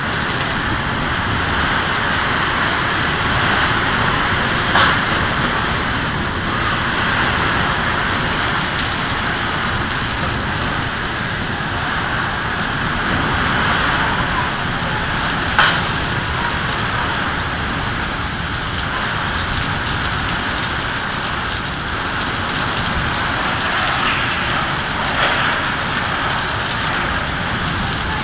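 Steady rain falling, an even hiss of a downpour, with a sharp click or knock about five seconds in and again about sixteen seconds in.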